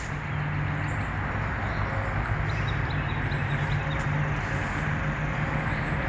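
Steady hum of nearby highway traffic: an even wash of tyre and engine noise with a low drone underneath, nothing starting or stopping.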